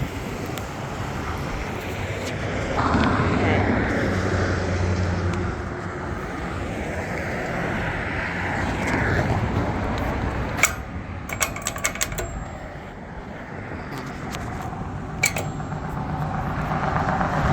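Road traffic going by, a vehicle passing a few seconds in. About halfway through, a quick run of sharp clicks, five or so within a second and a half, then one more click a few seconds later: an Econolite crosswalk push button being pressed.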